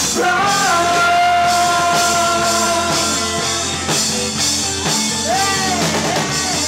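Live rock band playing: a singer holds one long note over the first few seconds and sings a short phrase near the end, over electric guitars and a drum kit.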